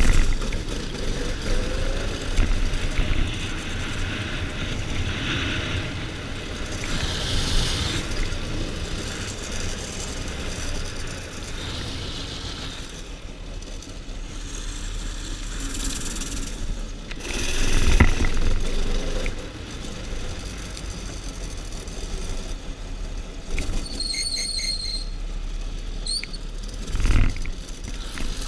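Small off-road vehicle's engine running through a ride, with wind rushing over the microphone. There are two louder surges, one in the middle and one near the end, and a brief high-pitched squeal shortly before the end.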